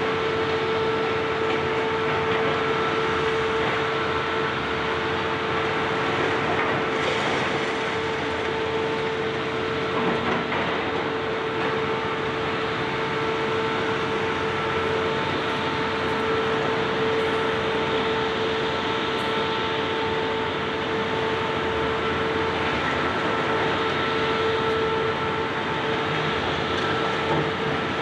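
Heavy demolition machinery running steadily, a high-reach excavator at work, with a constant whine over a rough noise. A couple of faint knocks come about a third of the way in.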